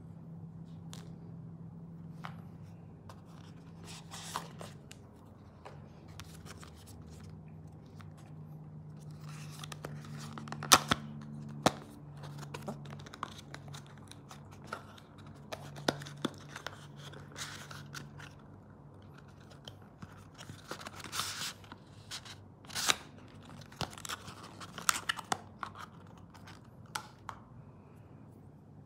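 Hands unpacking a watch box: scattered clicks and taps with short rustles and tearing of packaging, busier near the middle and toward the end, over a faint steady low hum.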